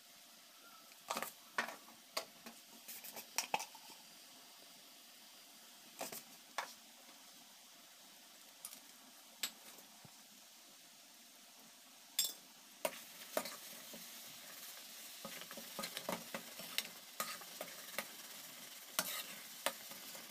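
Slotted steel spoon scraping and clinking against a steel pan while stirring thick, simmering raw mango murabba, with a soft sizzle of the cooking pulp underneath. The clinks come in scattered groups, thicker in the last few seconds.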